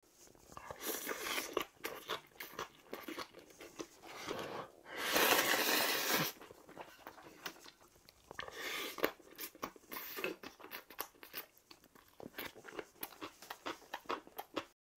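Close-miked eating: a man chewing and crunching mouthfuls of raw-kohlrabi bibimbap, with many small wet clicks and crackles. About five seconds in comes one louder rush of sound that lasts about a second.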